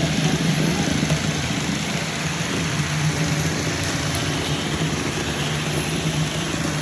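Robot vacuum cleaners (Roombas and an iLife V8) running together: a steady whirring hum of their suction fans and brush motors.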